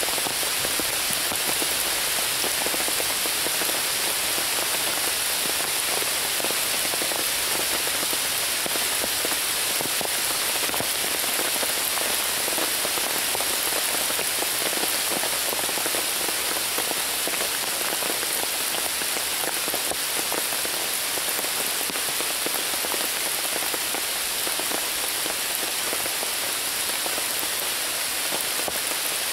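Steady rain falling on the leaves of a woodland canopy, an even, unbroken hiss of dense patter.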